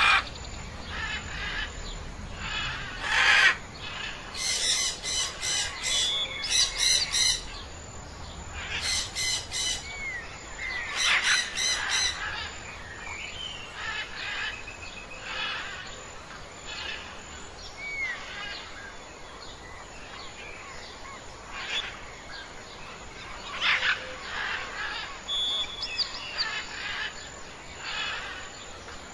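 Several birds chirping and squawking. Two fast runs of harsh repeated notes come about five seconds in and again around ten seconds in, with short rising whistles here and there.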